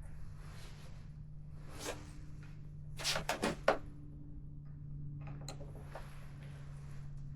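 Handling noise of small parts and tools: a knock, then a quick cluster of sharp clicks and clatters about three seconds in, over a steady low hum.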